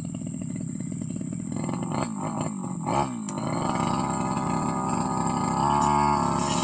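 Brush cutter engine running at low revs, then throttled up from about one and a half seconds in and held at high revs.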